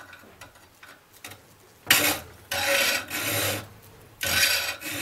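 A 7/32 round file rasping across the teeth of a pole-saw blade held in a steel vise, sharpening the teeth. After a near-quiet start with a few faint ticks, a run of hand strokes begins about two seconds in, with a short pause before the last stroke.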